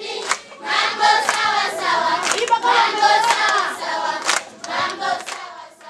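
A large group of schoolchildren singing together in chorus, with hand clapping cutting through the song.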